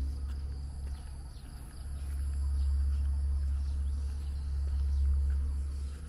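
Outdoor ambience: insects trilling steadily in a high register over a low rumble that swells and dips.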